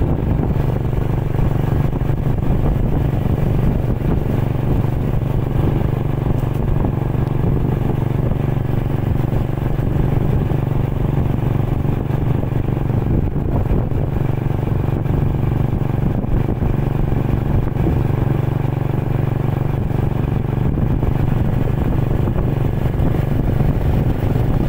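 Vehicle engine running at a steady speed, heard from on board as the vehicle moves along: a constant low drone that holds level without revving.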